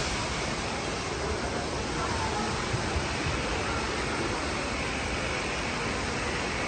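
Steady rushing background noise with no distinct events: the ambient din of a large enclosed hall.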